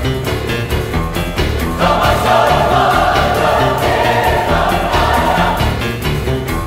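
Background music with a steady beat and a choir singing; the choir swells louder from about two seconds in and falls back a little after five seconds.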